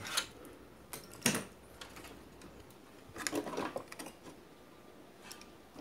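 Hand-handling clicks and knocks of a CRT TV flyback transformer's plastic housing as it is moved and fitted to the circuit board: a few sharp single clicks and a short rattling cluster of them near the middle.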